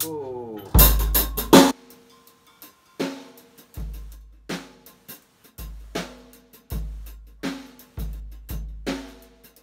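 Basix drum kit being played: a loud pair of crashing hits about a second in, then a slow, steady beat of bass drum and snare strokes with cymbals ringing over them.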